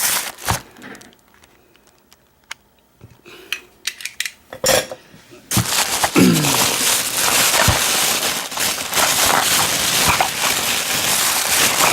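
Package being handled and opened. First a few light clicks and taps, then about five and a half seconds in, loud continuous crackling and crinkling of packaging being torn open.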